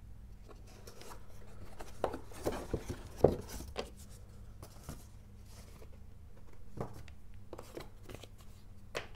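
Cardboard box and foam insert being handled by hand as the insert is lifted out, making scattered light knocks and rubbing, with one sharper knock about three seconds in. A low steady hum runs underneath.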